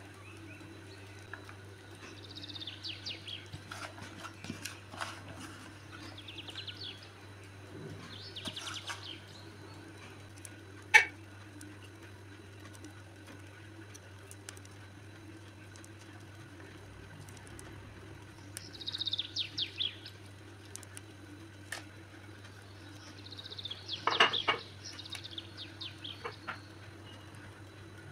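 Scattered short bird chirps over a low steady hum, with one sharp click about eleven seconds in.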